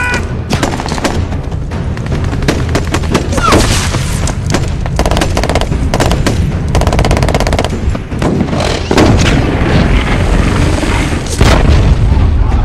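Intense gunfire from assault rifles: single shots and long bursts of rapid automatic fire, thickest around the middle, over a constant low rumble with occasional booms.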